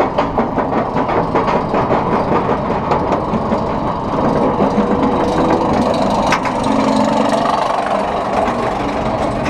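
Kraken, a Bolliger & Mabillard steel coaster, climbing its chain lift hill with the anti-rollback clicking about four times a second; about four seconds in the clicking stops as the train crests and rolls slowly over the top with a steady rumble. One sharp clank about six seconds in.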